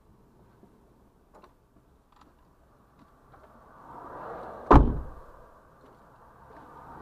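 A whooshing swell that builds for about a second and ends in one sharp, loud thud a little past the middle. A softer whoosh rises near the end, and a few faint clicks come before it all.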